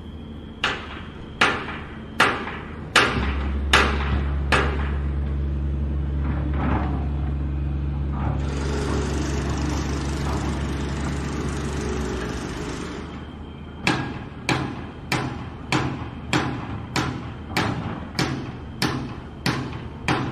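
Demolition sounds: a run of heavy hammer blows, about one every three-quarters of a second, and then a machine's low steady drone with a harsh rushing noise over it for about five seconds. After that comes another, slightly faster run of hammer blows.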